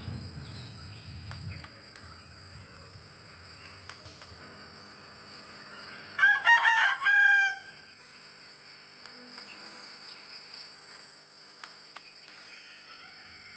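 A rooster crowing once, about six seconds in: one loud call of about a second and a half. Under it runs a steady, high insect buzz.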